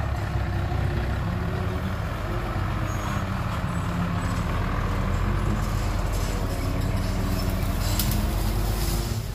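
Dump truck's diesel engine running under load as it pulls away across loose dirt: a steady low drone whose pitch rises and falls a little.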